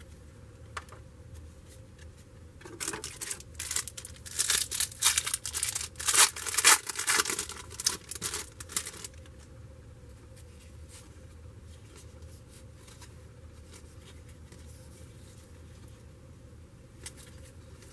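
A trading card pack's wrapper being torn open and crinkled: a run of sharp crackling tears from about three seconds in, loudest in the middle, stopping about nine seconds in. After that only a few faint clicks from the cards being handled.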